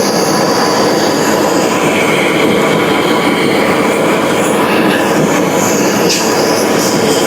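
Loud, steady mechanical running noise with high squealing tones coming and going over it, and a sharp click about six seconds in.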